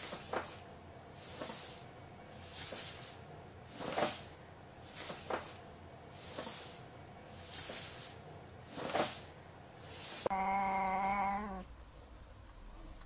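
A soft swishing that swells and fades about every second and a quarter, then, about ten seconds in, a cat's low, drawn-out yowl held on one pitch for about a second and a half as two cats square off.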